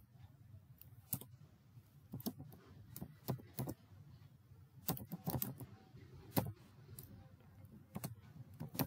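Computer keyboard being typed on: a dozen or so separate keystroke clicks at an uneven pace, some in quick runs of two or three, with short pauses between.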